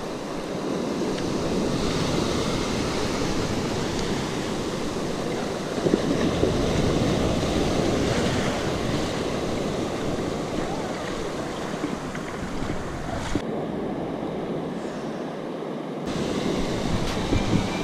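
Ocean surf breaking and washing up the sand, with wind noise on the microphone.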